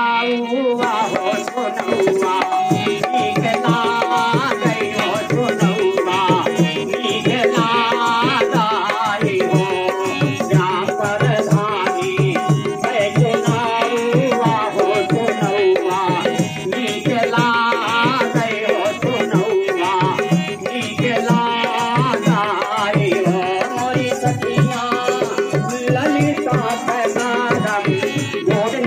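Birha folk song: a man singing into a microphone over a steady, even hand-drum beat.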